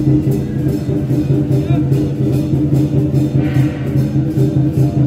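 Music with a steady low drone and a quick, regular percussive beat.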